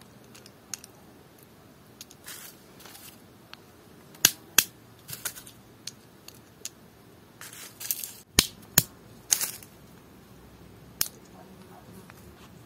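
Cracked hazelnut shells snapping and crunching as fingers peel them off the nut: a handful of sharp clicks scattered through, with short crackly rustles in between.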